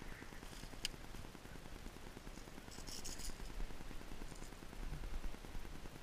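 Faint handling noises: one sharp click about a second in, then soft scraping and rustling.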